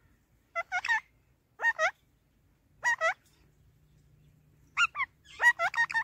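Pet ring-necked parakeet calling in short clusters of two or three quick pitched notes that bend up and down. There are about five clusters, and the busiest burst comes near the end.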